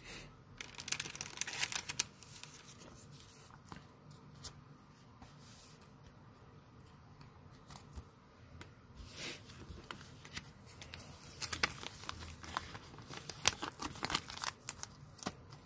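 Pokémon card booster pack foil wrapper being torn open and crinkled, in scattered bursts with quieter handling between; the loudest come about a second in and again from about eleven seconds.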